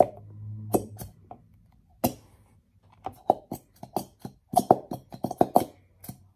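A plastic Elmer's glue bottle being handled and squeezed over a plastic bowl: a few sharp clicks, then from about three seconds in a quick run of short squelching pops as glue and air spurt from the nozzle.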